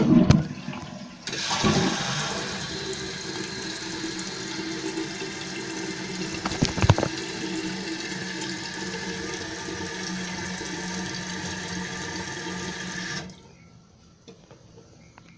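1993 Kohler Wellworth Lite toilet flushing with its tank lid off: a loud clack at the start, then about twelve seconds of rushing water as the tank empties and refills, with a few knocks midway, cutting off suddenly.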